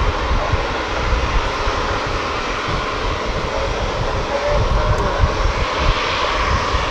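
Rolls-Royce Trent XWB turbofans of an Airbus A350-900 running at low power as the airliner moves on the ground: a steady jet rush over a deep, uneven rumble, with a faint whine through it.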